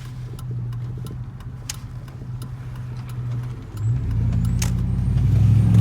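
Chevy Silverado 2500 pickup's engine running steadily during a slow left turn, with light ticking, growing louder about four seconds in as the truck picks up speed. No noise from the driveline is heard on this turn.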